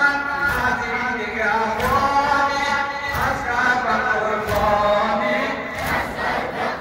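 A voice chanting a noha, a Shia mourning lament, in a continuous melodic line, with the rhythmic thuds of mourners beating their chests underneath.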